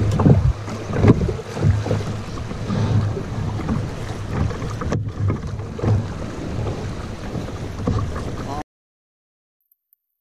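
River rapids rushing around a canoe, with heavy wind buffeting the microphone in uneven gusts. It cuts off abruptly about 8.5 seconds in.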